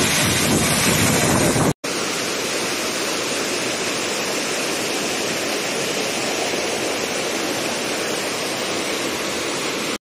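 Waterfall pouring onto rocks in a loud, steady rush that cuts off abruptly a little under two seconds in. After that, a fast stream rushes over rocks with a steady, slightly quieter noise.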